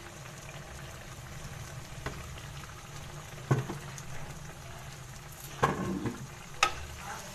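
Goat head meat and masala frying in oil in a karahi, with a steady sizzle. A wooden spatula stirs it, knocking against the pan a few times.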